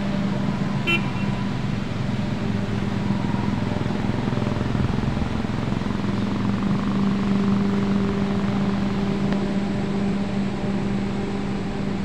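Water rushing and churning over a low weir, under a steady low mechanical hum.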